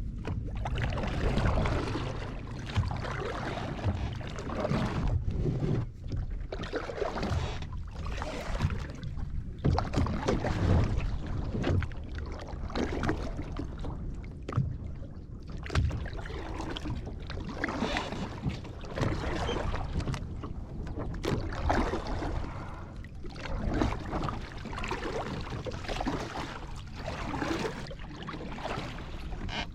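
Kayak paddle dipping and pulling through the water in a steady rhythm, a splashing swell about every two seconds, over a low rumble of wind on the microphone.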